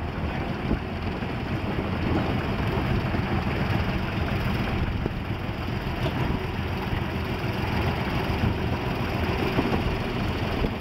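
Ruston narrow-gauge locomotive's engine running with a low, even beat as the loco drives along the track and comes past close by.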